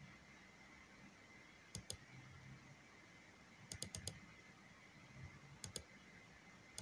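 Faint computer mouse clicks: a double-click about two seconds in, four quick clicks near four seconds and another double-click near the end, as folders and then a video file are opened in a file dialog.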